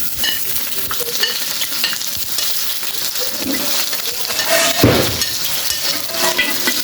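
Food frying and sizzling in a hot pot with stirring, a steady hiss with a few light clinks of the utensil. A brief louder low sound comes about five seconds in.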